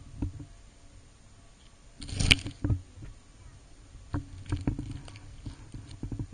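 Water sloshing and knocking against a camera held at the water's edge: a louder splash about two seconds in, then scattered small knocks and taps.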